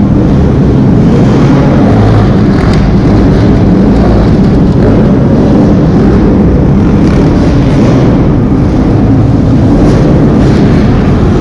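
Several dirt bike engines running loudly, their revs rising and falling as the bikes climb over logs, inside a large indoor arena.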